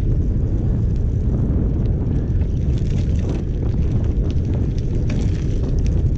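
Wind buffeting the microphone of a camera on a moving bicycle, a steady loud rumble, with the tyres crackling over the gravel towpath and small scattered clicks and rattles.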